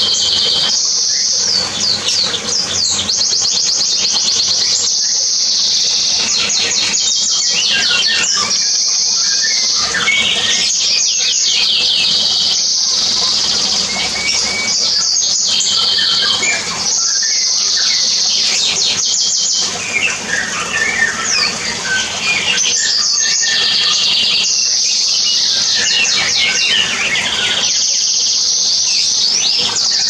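A dense chorus of small caged birds singing in an aviary: rapid high trills and chirps, one short phrase after another without a break.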